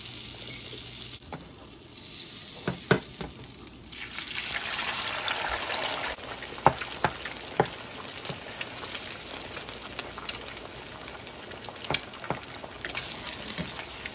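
Eggs frying in butter in a nonstick skillet, a steady sizzle that swells about four seconds in as the eggs go into the pan. Sharp clicks and taps of a spatula against the pan run through it.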